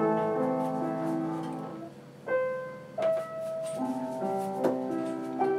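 A child playing a simple slow melody on the piano, notes and chords ringing and fading away. The playing thins out about two seconds in, then picks up again with fuller chords.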